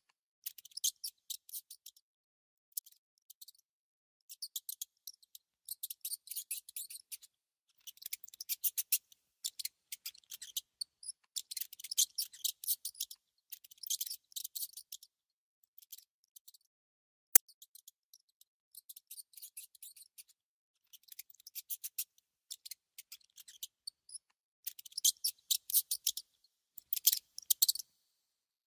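A mouse gnawing and nibbling at food: bouts of rapid, crisp crunching clicks a second or two long, broken by short pauses. There is one single sharp click about 17 seconds in.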